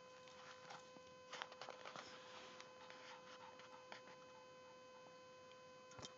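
Faint clicks and scuffles of a Shih-Tzu's claws on a hard floor as she comes up and paws about, busiest a little over a second in, over a steady electrical hum.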